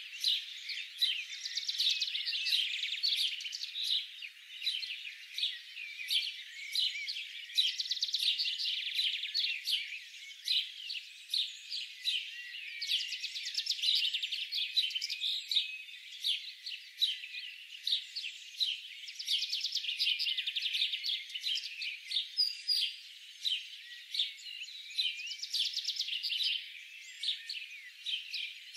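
Many small songbirds chirping, whistling and trilling over one another in a continuous chorus, with bursts of fast trills every few seconds. The sound is thin, with nothing in the low range.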